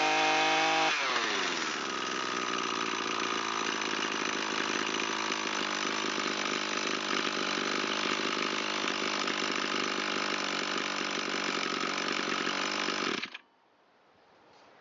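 Echo SRM225 string trimmer's small two-stroke engine, just restarted: the throttle drops from a rev about a second in, then it idles steadily before being shut off abruptly near the end.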